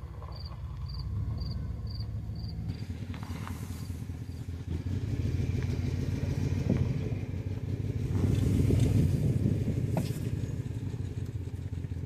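Low, steady rumble of a vehicle driving slowly, heard from on board, swelling louder about eight to nine seconds in. Insect chirps repeat about twice a second for the first few seconds, then stop.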